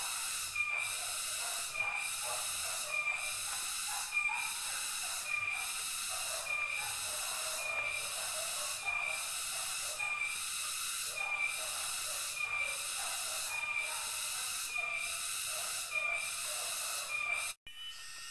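Chorus of cicadas, a high hissing buzz that swells and fades in an even pulse about once a second with a ringing whine in each pulse. It cuts off abruptly near the end.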